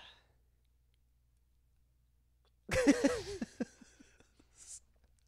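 Near silence for almost three seconds, then a short untranscribed burst of a person's voice that trails off into faint breaths and mouth clicks.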